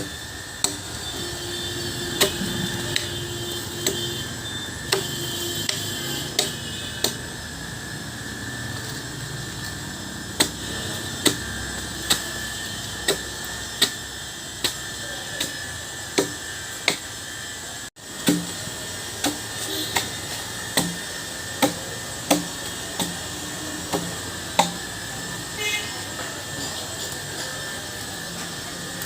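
Wood being chopped by hand: sharp blows roughly once a second, pausing for a few seconds about a third of the way in.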